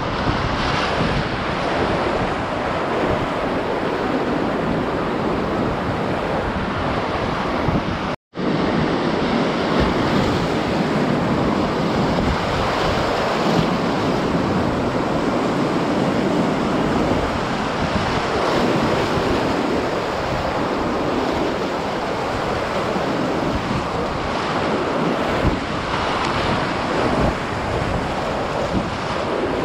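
Rushing whitewater rapids on a river in spate heard close up from a kayak, with water splashing around the paddle and boat and wind buffeting the helmet-mounted microphone. The sound drops out for an instant about eight seconds in.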